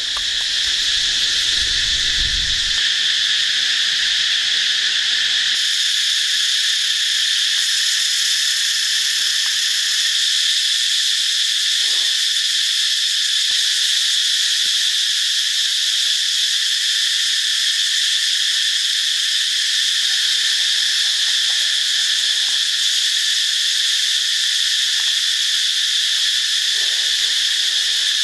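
Steady insect chorus, a continuous high-pitched drone that holds the same level throughout.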